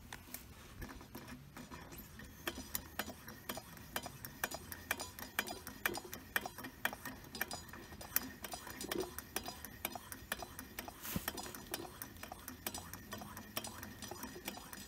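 Small gas camping stove being worked by hand at its valve and canister: a run of sharp, irregular clicks, about three a second, with one louder snap about eleven seconds in.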